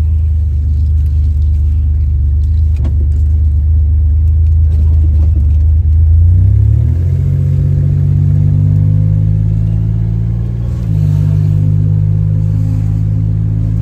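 Buick Grand National's turbocharged V6 running, heard from inside the cabin. It holds a low, steady note at first, then about halfway through the pitch rises as the car pulls away and settles into a higher steady drone. It eases off briefly near the end.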